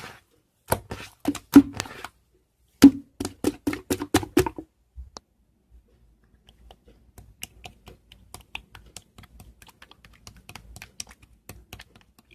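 Typing on a keyboard: rapid runs of key clicks. It is louder in the first few seconds, then turns to fainter, quicker typing from about six seconds in.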